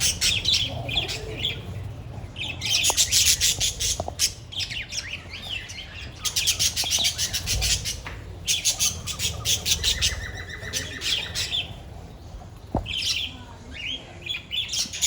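A flock of budgerigars (budgies) chattering and squawking in rapid, scratchy bursts that come and go every couple of seconds, with a few sharp clicks in between.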